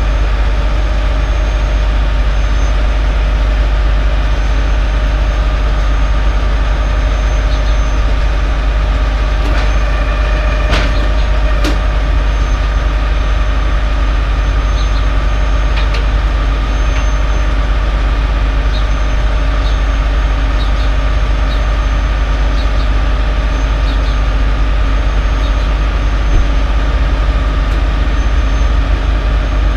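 Peterbilt 379 car carrier's diesel engine running steadily with a strong low rumble and a thin high whine, powering the hydraulics that position the loading deck. A couple of sharp metallic clicks come about eleven seconds in.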